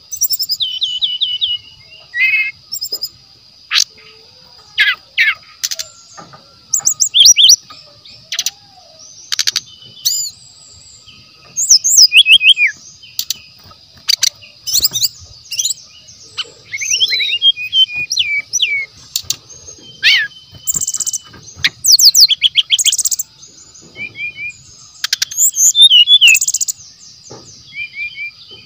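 Brown-chested jungle flycatcher singing: short, loud, varied phrases of quick whistles, trills and chirps, broken by brief pauses, over a steady high-pitched whine.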